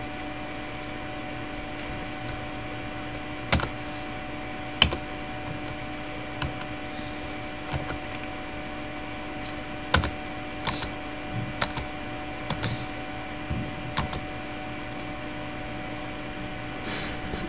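A handful of short, sharp clicks at a computer, about seven scattered irregularly through the stretch, over a steady electrical hum and hiss.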